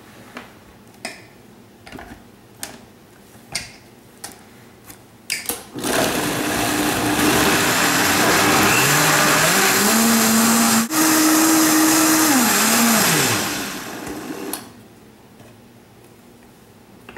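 After a few light knocks, a high-powered countertop blender starts about six seconds in and blends leafy greens, strawberries and water into a smoothie. Its motor pitch climbs in steps as the speed is turned up, runs for about eight seconds, then falls away as it is switched off.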